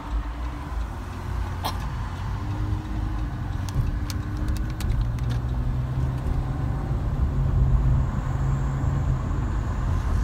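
Car interior road noise while driving: a steady low rumble of engine and tyres heard from inside the cabin. A sharp click comes about two seconds in, with a few fainter ticks a couple of seconds later.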